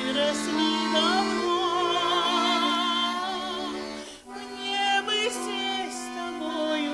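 A song with a woman's voice singing long held notes with a wide vibrato over steady musical accompaniment, with a brief break about four seconds in.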